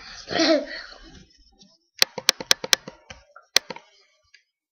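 A brief child's vocal sound, then about two seconds in a quick run of five sharp taps, with one more tap about a second later.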